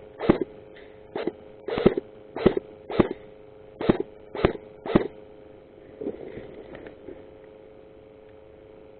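Airsoft gun fired in single shots: about eight sharp cracks spaced unevenly over five seconds, then they stop.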